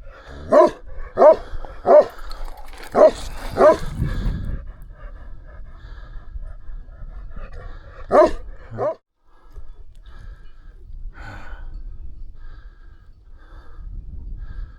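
Livestock guardian dog barking: five loud barks in the first four seconds, then two more about eight seconds in.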